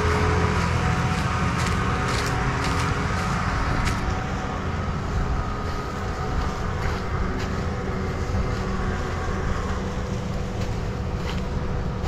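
John Deere S670 combine running steadily as it moves across the field toward the standing corn, its engine drone a little louder over the first few seconds and easing slightly after, with scattered light ticks.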